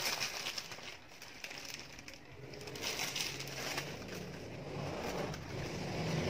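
Close-up eating noises: a person chewing donut and pastry, with scattered crackling and crinkling from handling the food and its wrapping.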